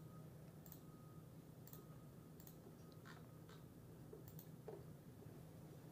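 Near silence: faint room hum with a handful of faint, irregular clicks from a computer mouse being used on the charting software.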